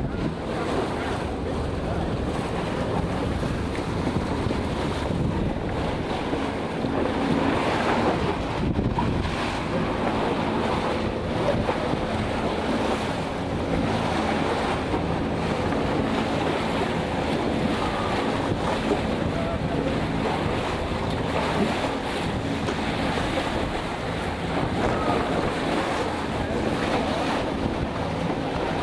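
Horstman Tristar 36 trimaran under sail: wind buffeting the microphone over a steady rush of water along the hulls.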